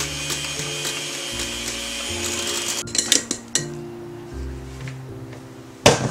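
Electric hand mixer whipping cream in a glass bowl, the beaters whirring and rattling against the glass, then switched off abruptly about halfway through. A few light clicks follow, and a single sharp knock near the end.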